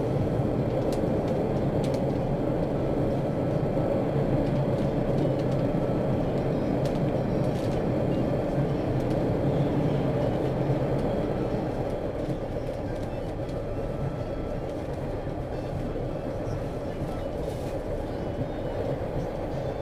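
Subway train riding along the rails: a steady, dense rumble of wheels and car, with a few faint clicks, getting a little quieter about two-thirds of the way through.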